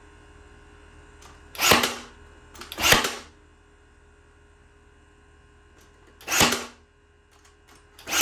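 Brad nailer firing four times, driving brads into wooden boards: each shot a sharp crack with a short tail, two near the start, one past the middle and one at the very end.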